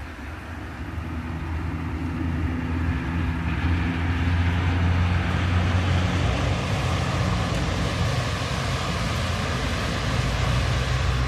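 Low, steady rumble of a motor vehicle's engine, growing louder over the first few seconds and then holding.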